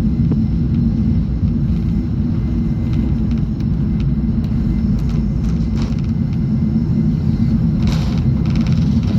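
Cabin noise at the front of a Boeing 747-400's lower deck during takeoff: a loud, steady, deep rumble of the jet and its run along the runway, with scattered light rattles and a cluster of knocks near the end.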